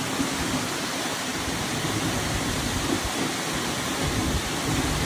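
Seljalandsfoss waterfall heard from close by: a loud, steady rush of falling water, with wind buffeting the microphone.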